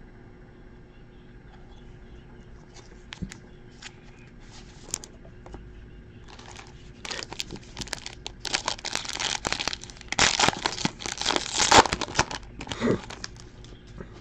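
A foil trading-card pack crinkling and being torn open by hand, with a few light clicks first and a dense crackle in the second half that stops shortly before the end.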